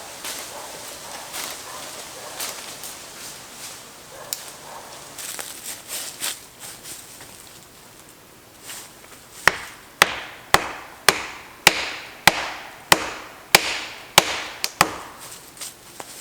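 Improvised wedges being hammered into a saw cut to free a chainsaw bar pinched in a felled tree: about ten sharp blows on wood, a little over half a second apart, starting about halfway through, after light rustling.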